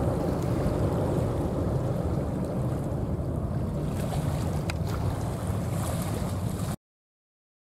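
Boeing 747-400 freighter's four jet engines giving a steady low rumble as it climbs away overhead after take-off. The sound cuts off abruptly about a second before the end.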